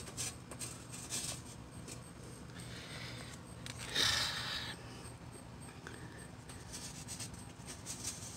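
Ballpoint pen scraping and tapping against a galvanized metal tin holding loose bottle caps, in small scattered clicks and scrapes, with a louder scraping rush about four seconds in as the tin is moved.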